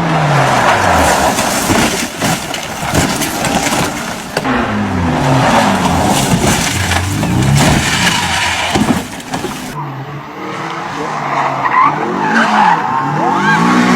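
Racing car engine revving, its pitch climbing and dropping again and again through gear changes, over a rush of tyre and road noise. In the last few seconds, higher squealing tones from skidding tyres join in.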